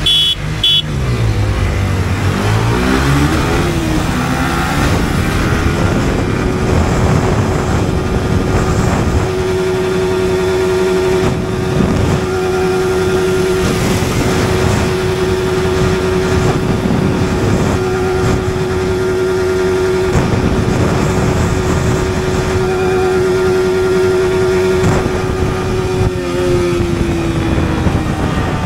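Yamaha R15 V4's single-cylinder engine accelerating hard in second gear. The revs climb over the first few seconds, then hold at one steady high pitch for most of the run and fall off near the end, with wind rushing over the microphone.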